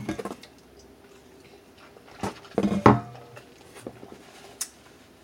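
Close-miked eating at a seafood boil: crab and shrimp shells handled, food chewed, and dishes clinking. It comes as short clicks and crunches in two clusters, right at the start and again a little over two seconds in, loudest just before three seconds.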